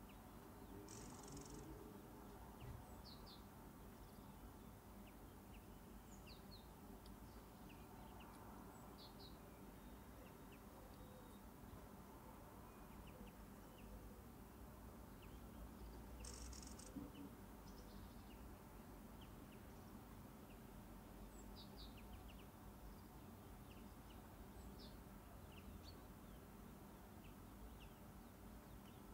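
Near silence: quiet room tone with scattered faint high chirps, and a brief soft hiss twice, about a second in and past the middle.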